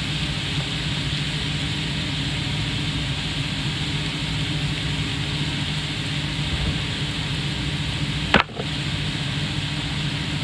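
Ground beef, onion and diced carrot frying in a nonstick wok as a spatula stirs them, over a steady mechanical hum. A single sharp click comes about eight seconds in.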